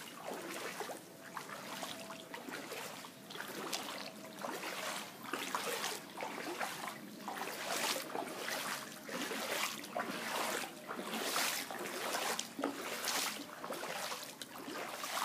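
Floodwater splashing and sloshing in a series of repeated strokes, about one a second, as something moves through shallow standing water.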